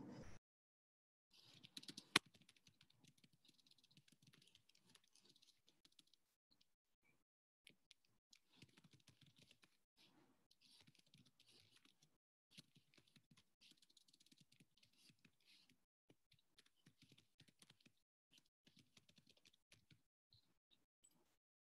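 Faint typing on a computer keyboard: irregular runs of small key clicks, with one sharper click about two seconds in.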